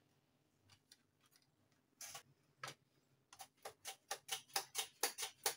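Peeled raw potato being sliced on a mandoline slicer: after a quiet start, a couple of single strokes about two seconds in, then a quick steady run of short slicing strokes, about five a second.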